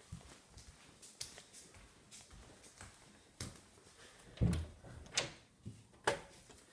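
Scattered knocks and clunks of someone moving into a room and handling things, the loudest, a dull thud, about four and a half seconds in.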